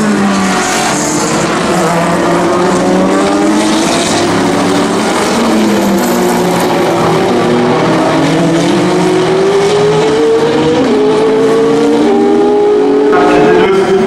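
Racing cars' engines at speed: an LMP2 prototype and Aston Martin GT cars, several engine notes overlapping. Their pitch drops as they shift down, then climbs again several times as they accelerate up through the gears.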